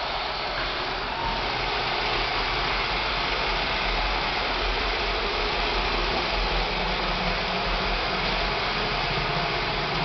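Roomba robot vacuum running: a steady whir of its vacuum motor and brushes as it cleans. It grows slightly louder about a second in and then holds steady.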